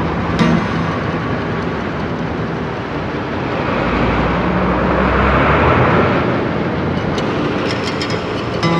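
Subway train running: a steady rumble and rattle that swells about midway, with a run of sharp clicks near the end.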